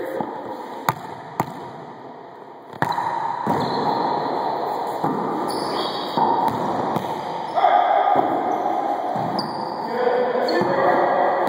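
Sharp smacks of a rubber wallyball being hit and bouncing, two of them about a second in. From about three seconds in, a busier stretch of sneakers squeaking and scuffing on the hardwood court as the rally plays out, echoing in the enclosed court.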